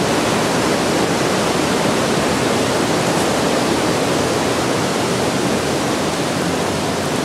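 Mountain river in a rocky gorge rushing and churning over small waterfalls: a steady, unbroken rush of water.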